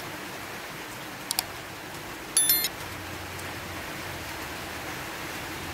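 Steady hiss with two quick clicks just over a second in, then a short, bright electronic chime about two and a half seconds in. These are sound effects from a like-and-subscribe button animation: cursor clicks and a notification bell.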